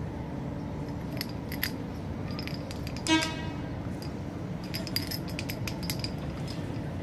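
Small clicks and taps of an empty snail shell being batted across paving stones by kittens, over a steady outdoor hum. About three seconds in, one short, loud pitched tone stands out above the rest.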